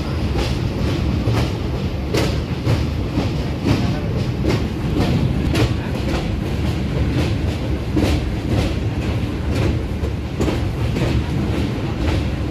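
Indian Railways passenger train running over a steel truss bridge, heard from an open coach doorway: a steady heavy rumble of wheels on rail with frequent sharp clacks, about two a second.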